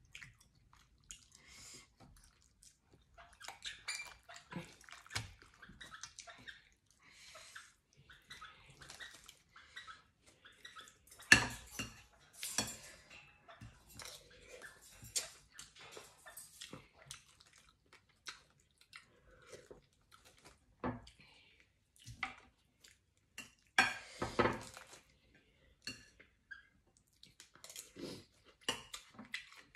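A metal spoon clinking and scraping in a metal pan of soup, with sipping and eating from the spoon in between. Short irregular clicks throughout, with the loudest bursts about 11 to 13 seconds in and again about 24 seconds in.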